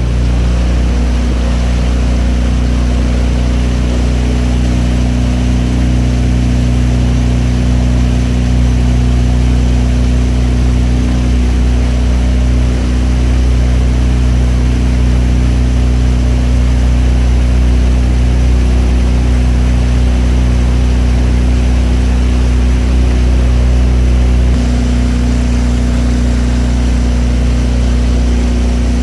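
Motorboat engine running at a steady speed, a constant low drone. Its tone shifts slightly near the end.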